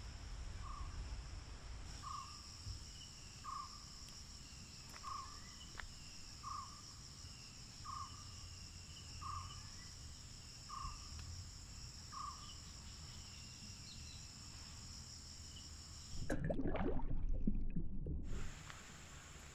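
Steady high-pitched insect drone of a forest soundscape, with a short call repeating about every second and a half, nine times, stopping about two-thirds of the way through. Near the end a louder noisy burst of about two seconds cuts across it, during which the insect drone drops out.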